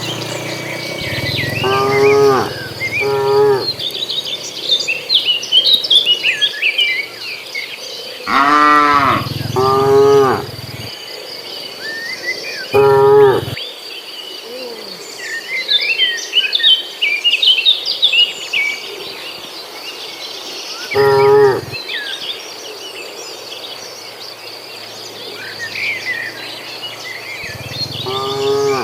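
Cattle in a herd mooing, about seven short calls spread through, several in quick pairs, with a steady high insect drone and chirping under them.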